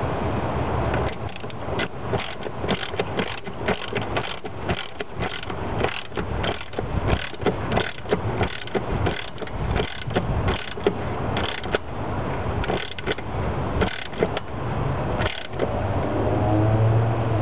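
Ratchet wrench clicking in short, irregular runs while fasteners on the intake tube are tightened.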